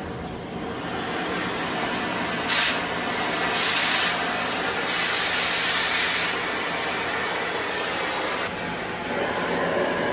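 Cutting torch hissing steadily as it cuts steel, with a short louder rush of gas about two and a half seconds in and two longer louder rushes a little later.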